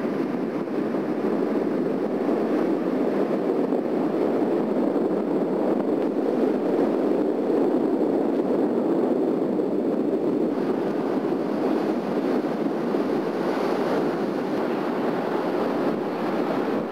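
Steady rushing wind noise on the camcorder's microphone, an even roar with no distinct events, which swells slightly around the middle.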